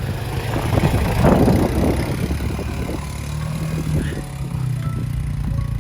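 Four-wheeler (ATV) engine running steadily, its pitch rising a little past halfway through, with a rush of noise about a second in.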